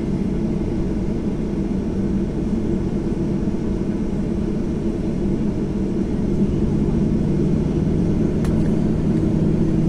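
Jet airliner's engines droning steadily inside the passenger cabin, on the runway before take-off, growing slightly louder about six seconds in.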